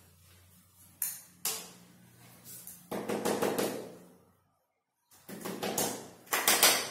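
Two sharp knocks about a second in, then two longer stretches of clattering and rubbing, like objects being handled and moved about, over a faint low hum.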